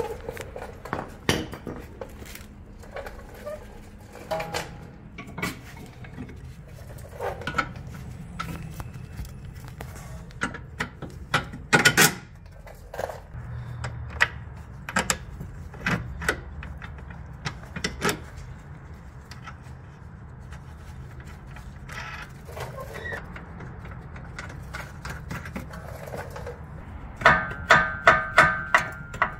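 Intermittent clicks, knocks and clinks of hand tools, bolts and metal rear suspension arms being handled as the camber and toe arms are worked out and swapped, over a steady low hum. Near the end comes a quick run of ringing metallic clinks.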